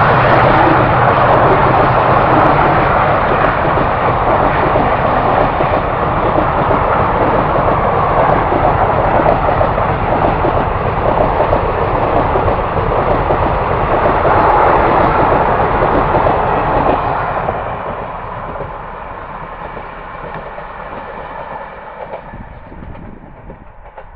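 Indian Railways passenger train's coaches running past on the track: a loud, steady rush of wheels on rails that begins to fade about 17 seconds in as the last coach draws away.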